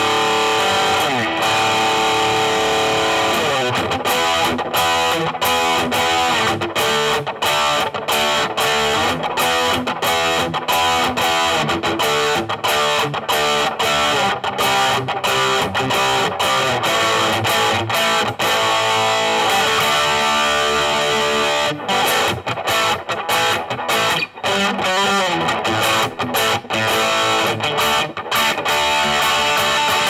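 Gibson 2019 Les Paul Standard electric guitar with Burstbucker Pro pickups, played through a Blackstar HT Soloist 60 tube amp. Continuous picked single-note lines and chords with a few string bends.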